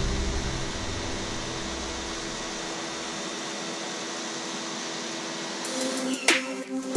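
Pressure washer running steadily, the hiss of its water jet spraying onto a soapy rug. A low rumble lies underneath for the first three seconds, and a few sharp clicks come near the end.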